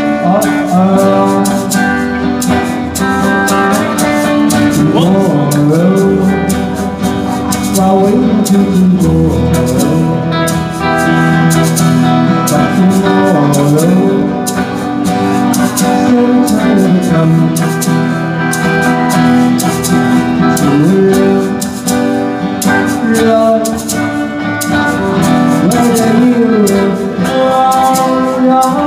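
Live band playing an early-1960s pop song: a man singing over guitars, with a steady rhythm of percussion hits.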